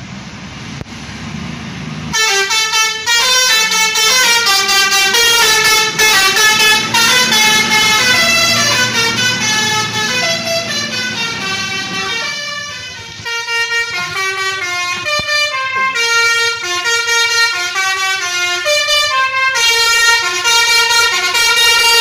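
Bus's Basuri telolet musical horn, a multi-trumpet horn playing a fast, loud melody of quickly changing notes. It starts about two seconds in, dips briefly about halfway through, then plays on.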